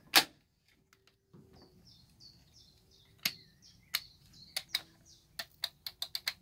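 Plastic clicks of a megaphone's trigger and remote-control buttons being pressed, one sharp click just after the start, then a quickening run of clicks in the second half; the megaphone itself gives no sound, as it is not working. A bird chirps faintly in the background for a few seconds in the middle.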